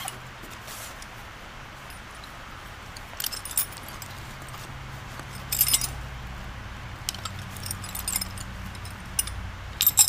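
Small steel hand tools, open-end wrenches and a screwdriver from an e-bike's supplied basic tool kit, clinking and jangling together as they are pulled out of a fabric tool pouch, in several short bursts.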